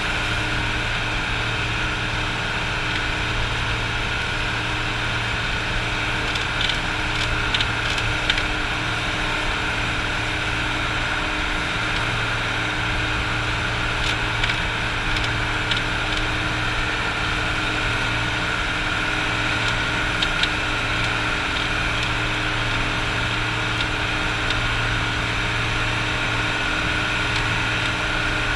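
Outrigger fishing boat's engine running steadily while underway. A few short clicks or knocks sound over it.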